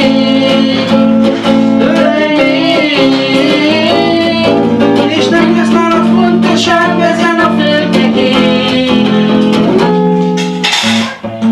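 Archtop guitar playing a tune, with a melody line that bends and wavers over the chords; the sound dips briefly near the end.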